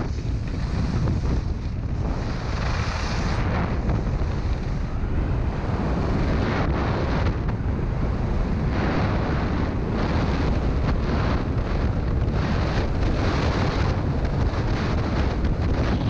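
Wind buffeting the microphone: a loud, steady noise, heaviest in the low end.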